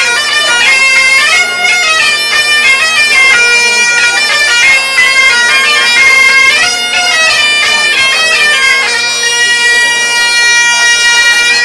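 Bagpipes and a wooden transverse flute playing a quick melody together over the pipes' steady drone. About nine seconds in they settle on one long held final note, which stops right at the end.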